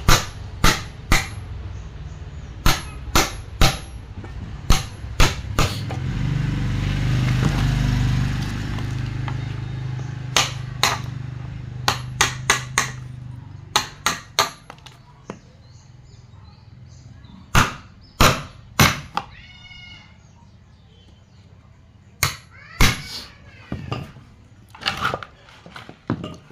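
Hammer blows on wood in irregular clusters during door-frame (kusen) work in a woodworking shop. For several seconds in the middle, a power tool's motor runs up and winds down under the knocking.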